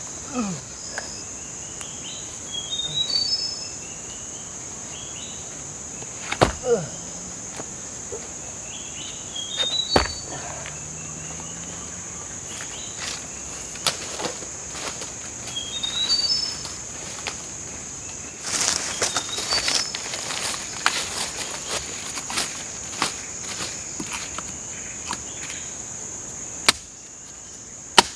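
Insects drone steadily at a high pitch, and a bird repeats a short rising phrase of quick notes several times. Over this come a couple of sharp knocks and, about two-thirds through, a burst of rustling footsteps in dry bamboo litter.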